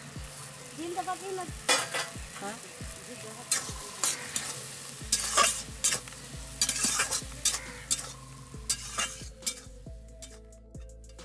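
A metal spatula scrapes and clinks against a metal kadai as tomatoes and sugar are stirred in oil, with a steady frying sizzle underneath. The strokes come in irregular bursts, busiest in the middle.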